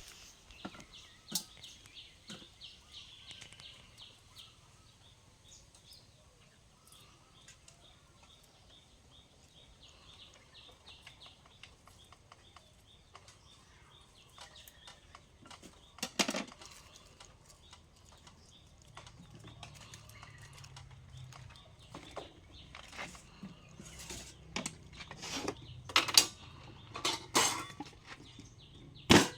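Scattered knocks and clatter of cooking utensils and cookware, with one loud knock about halfway through and a quick run of sharper knocks near the end.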